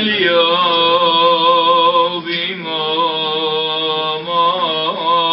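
A lone man chanting a Syriac Orthodox liturgical melody, unaccompanied, in long held notes with a slight waver. He breaks off briefly for breath about two seconds in, then goes on.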